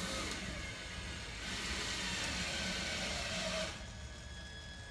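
Drill running as it drives sheetrock screws through drywall into a wooden 1x2 backing board, louder for about two seconds in the middle and then stopping.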